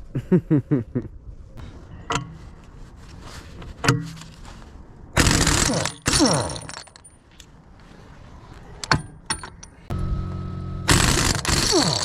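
Background music with two loud sweeping swells whose pitch slides downward, about five seconds in and again near the end, and scattered sharp metallic clinks in between.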